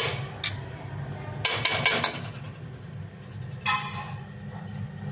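Dish clinking and knocking a few times, with a quick cluster of clinks about a second and a half in, over a steady low hum.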